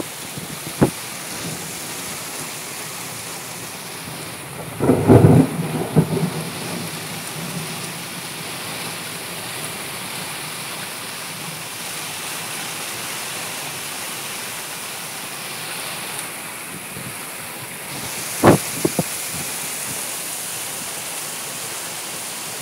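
Heavy rain falling steadily in a storm, broken by a cluster of sudden loud bangs about five seconds in and a single sharp crack about three-quarters of the way through.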